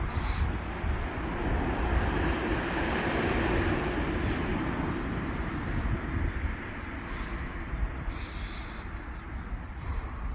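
ChME3 diesel locomotive and its train running along the track with a steady rumble, loudest a few seconds in and then easing off.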